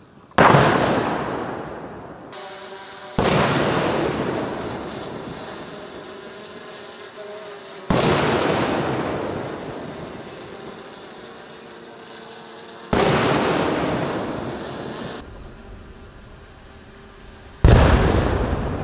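Ceremonial artillery gun salute: five heavy booms, most about five seconds apart, each followed by a long rolling echo. A brass military band plays faintly between the shots.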